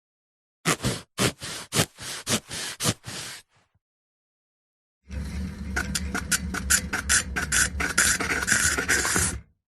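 Hand saw sawing in two runs of short scraping strokes: about eight strokes near the start, then after a gap of about a second and a half, a longer and faster run of strokes over a low hum.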